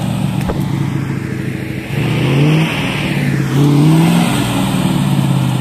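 GAZ-66 truck's engine working under load in mud, revving up twice, about two seconds in and again near four seconds.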